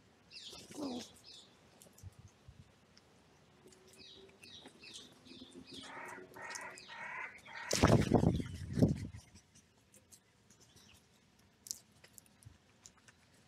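Birds calling around a feeding spot where crows are gathering: faint high songbird chirps, a quick run of pulsed calls about six seconds in, then a loud close noise lasting about a second, about eight seconds in.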